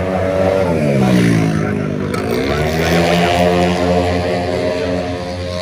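Tuned 130cc single-cylinder racing scooter engine at full throttle passing close, its pitch falling as it goes by. After a sudden break about two seconds in, another racing scooter engine climbs and holds a steady high note.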